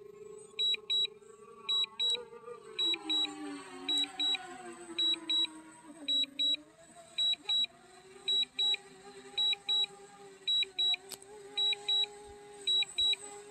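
DJI Mini 2 remote controller sounding its low-battery return-to-home warning: pairs of short high beeps, about once a second. A fainter wavering hum that glides in pitch runs underneath.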